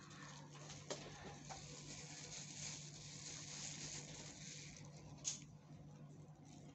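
Steady rain falling, an even hiss, with a few light clicks, the sharpest about five seconds in.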